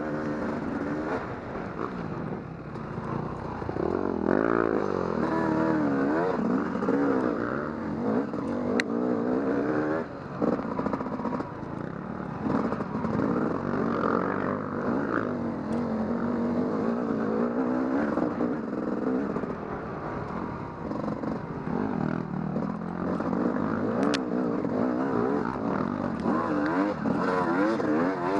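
Yamaha YZ 250 dirt bike engine on the move, its pitch rising and falling constantly as the throttle is worked on and off, with a couple of sharp knocks.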